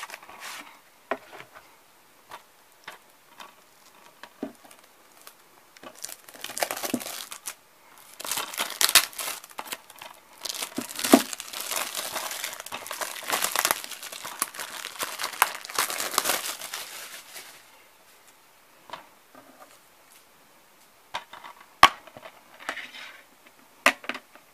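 Plastic shrink-wrap being torn and crumpled off a DVD case, with a long spell of dense crinkling in the middle. Near the end come a few sharp plastic clicks from handling the case.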